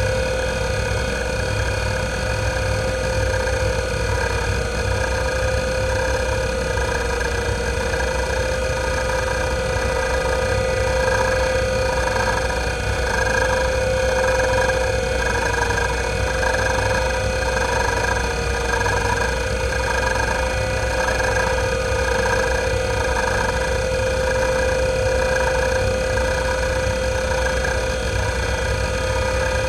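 IBM WDA-L42 40 MB single-platter hard drive (1992) seeking nonstop under the hdmotion test: fast head-seek clicking and chatter over the steady whine of the spinning platter. The seek sound shifts in texture as the test's sweep pattern changes, most between about 11 and 22 seconds in.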